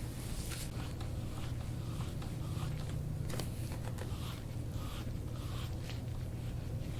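Hands rubbing and pressing over skin and clothing during soft-tissue massage, a string of short brushing rustles over a steady low hum.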